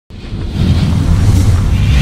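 Cinematic logo-intro sound effect: a deep rumble that swells up over the first half-second and holds loud, with a hissing whoosh building above it toward a hit at the very end.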